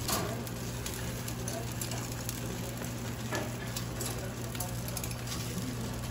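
Whole fish (mackerel, saury, flounder, rockfish) sizzling and crackling on the wire rack of a stainless-steel overhead fish grill, over a steady low hum. A couple of faint clicks, one near the start and one past the middle, as metal tongs touch the fish and rack.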